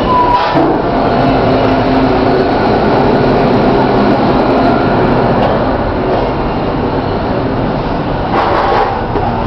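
Steady loud rumble and hum of a container ship's machinery and ventilation, heard inside the ship's accommodation block, with several steady tones running through it. A brief clatter comes near the end.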